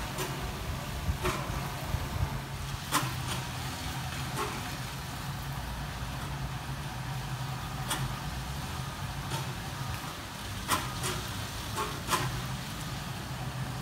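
Laminar-flow water fountains running: a steady low hum with scattered sharp ticks and splashes every second or two.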